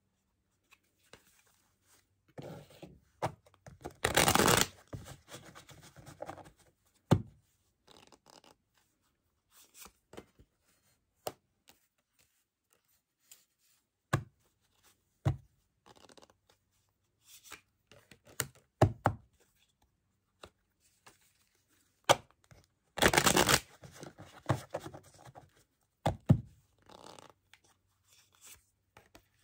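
Tarot cards being shuffled by hand, with two quick rustling runs of cards about four seconds in and again near 23 seconds, between scattered soft taps and clicks as cards are handled and laid down on a cloth-covered table.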